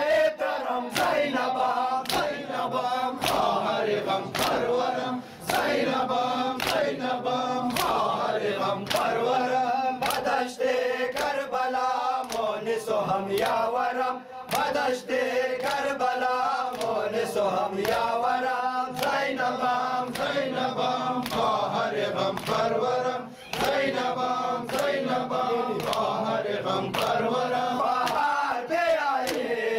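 A crowd of men chanting a noha, a Shia lament for Ashura, together. Their hands strike their bare chests in matam, a steady beat of slaps kept with the chant.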